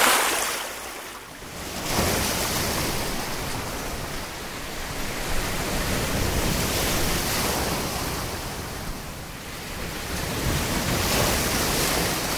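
Sea waves breaking and washing in the shallows, a steady rush of surf that swells and eases every few seconds.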